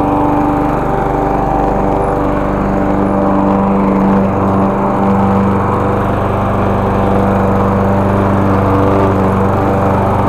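Walk-behind gasoline push mower's small single-cylinder engine running steadily while cutting grass.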